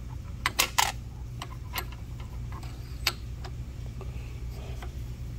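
Light metallic clicks and taps of a steel pilot rod and tapered centering cone being handled in a valve guide bore of a cast-iron cylinder head: a quick cluster of three about half a second in, then scattered single taps. A steady low hum runs underneath.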